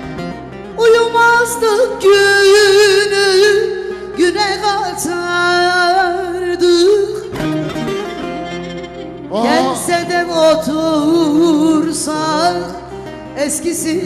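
A woman singing a Turkish folk song into a microphone, in long ornamented phrases with a wide vibrato, over instrumental accompaniment. She pauses briefly about two-thirds of the way through, then comes back in.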